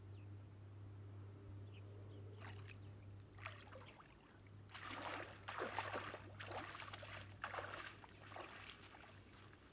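Legs wading through shallow muddy water: a run of irregular sloshing, splashing steps starting about halfway through.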